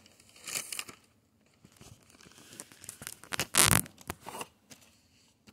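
Thin plastic bag crinkling and rustling as it is handled, in short, irregular bursts with one louder, brief rustle about three and a half seconds in.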